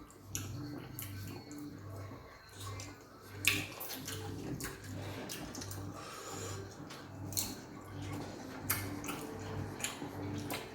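Wet squishing and chewing sounds of people eating fufu with peanut soup, with a few sharp clicks. A low hum pulses in the background about one and a half times a second.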